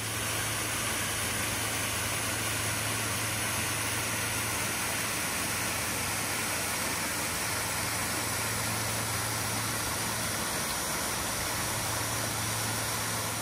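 Steady rushing of a waterfall, with a low hum underneath, cutting off suddenly at the end.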